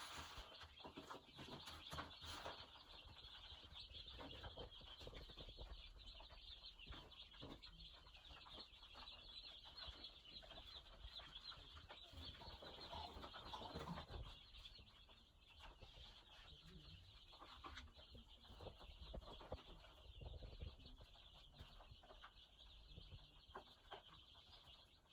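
A brood of day-old broiler chicks peeping constantly together, a dense high chorus, with scattered light taps and rustles among them.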